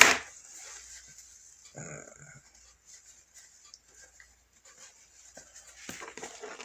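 A man blowing his nose into a tissue: one sudden loud blast at the very start, then softer sniffing about two seconds in.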